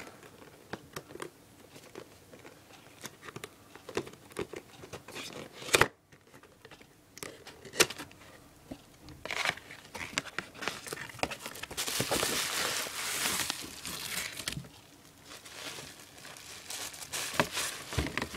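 Figure packaging being unwrapped by hand: scattered light clicks and handling noises, then several seconds of loud crinkling and tearing around the middle.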